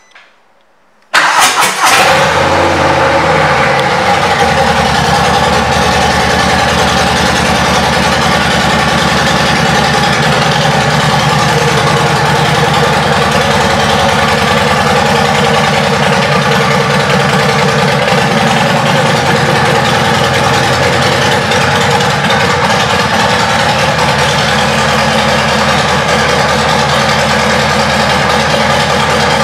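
Harley-Davidson Street Bob 114's Milwaukee-Eight 114 V-twin is started about a second in and catches almost at once, then idles steadily.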